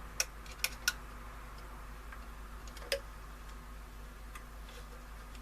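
Metal multimeter test probes clicking against the transistor radio's circuit during a continuity check: three sharp clicks within the first second and one more about three seconds in, over a steady low hum.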